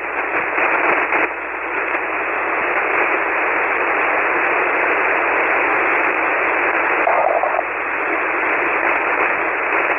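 Ham radio receiver on 40-metre single sideband giving steady band noise, a hiss cut off above and below at the edges of the voice channel. A faint tone shows briefly about seven seconds in.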